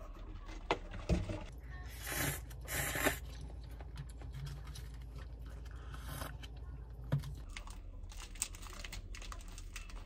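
Scattered light clicks and taps, with two short rustling noises about two and three seconds in, over a low steady room hum.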